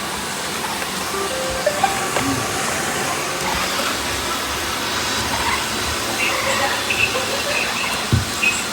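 A group of robot vacuum cleaners running together, a steady hiss of their suction motors and brushes, with a few faint short beeps near the end and a single knock about eight seconds in.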